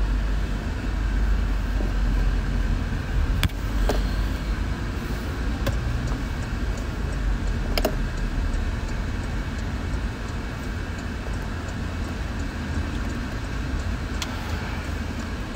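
Steady low rumble of a car on the move, heard inside its cabin, with a few faint clicks.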